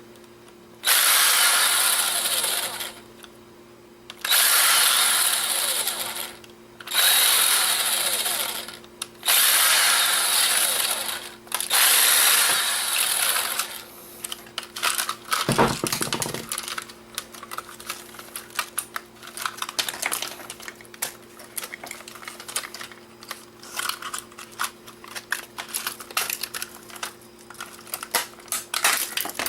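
A small power screwdriver running in five bursts of a couple of seconds each, backing out tiny screws from the camera's plastic shell. After that, many small clicks and rattles of screws and plastic parts being handled.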